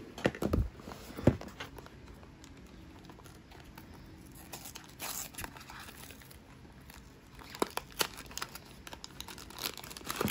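Small cardboard blind box being handled and opened, with a few knocks in the first second and a half as it is picked up, then its flaps opening and a plastic bag inside crinkling as it is pulled out near the end.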